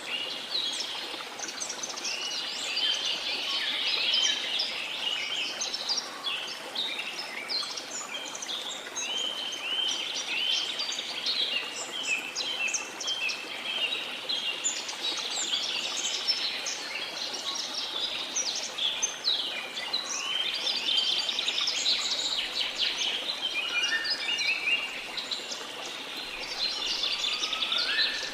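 Many birds chirping and trilling together over a steady rush of flowing water.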